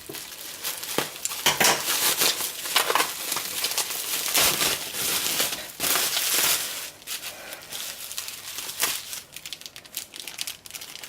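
Packaging crinkling and rustling as it is handled and unwrapped, dense for the first several seconds and then thinning to scattered crackles and clicks.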